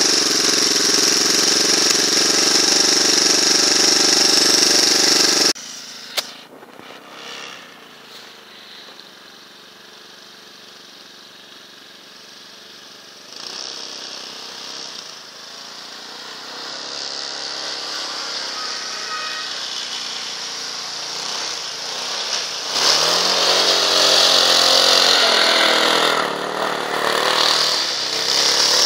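Leshy 2x2M two-wheel-drive motorcycle's engine running close by, then after an abrupt cut heard from a distance, revving as the bike churns through deep snow, and louder again near the end as it works harder.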